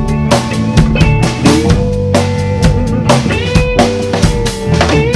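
Live band music: a drum kit with kick, snare and cymbals keeps a steady beat under a long held lead line that bends up and down in pitch.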